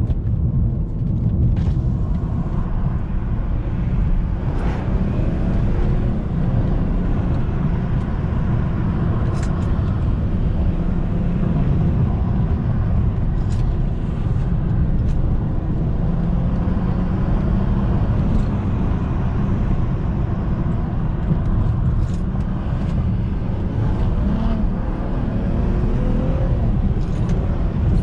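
2008 BMW 335i with the N54 twin-turbo straight-six under way on the road: steady engine and road rumble, the engine note rising in pitch a couple of times as it pulls through the gears.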